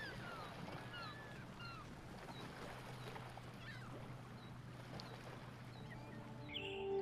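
Faint shoreline ambience: small waves lapping over pebbles, with a run of short falling bird chirps in the first two seconds and a low steady hum. Soft music comes in near the end.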